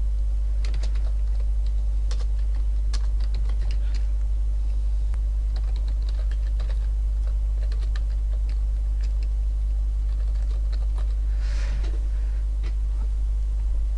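Computer keyboard typing: irregular keystroke clicks over a steady low hum.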